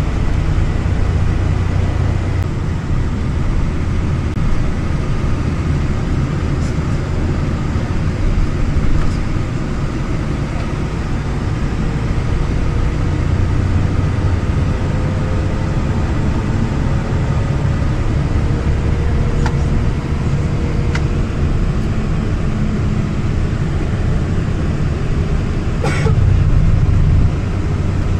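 Passenger train running: a steady low rumble with a faint whine that drifts slowly in pitch, and a few sharp clicks, the loudest about 26 seconds in.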